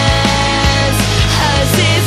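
Loud rock song with distorted guitars and a steady drum beat, carrying long held melodic notes that slide into one another.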